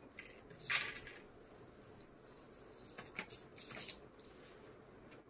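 Rustling of artificial marigold garlands being handled and spread out, in a few short bursts, the loudest about a second in.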